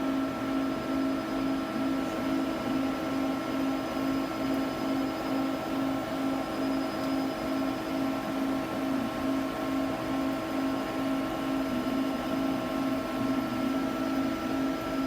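Mori Seiki CNC lathe running during a threading job: a steady machine hum made of several held tones, the lowest of them pulsing evenly about twice a second.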